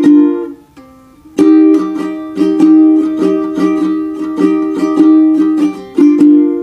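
Background music: an instrumental passage of plucked strings playing a bright repeating pattern. It drops out briefly about half a second in and starts again about a second later.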